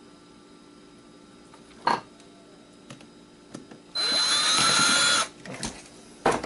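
Cordless drill or power screwdriver running for about a second near the end, its pitch rising as it spins up, working on a stripped screw in the power supply. Light clicks of tools or parts come before and after it.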